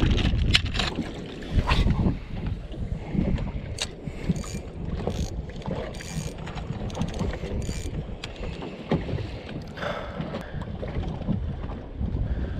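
Wind buffeting the microphone and choppy water slapping against a bass boat's hull, a steady low rumble. A few sharp knocks and clicks from handling gear come in the first two seconds, with lighter ticks after.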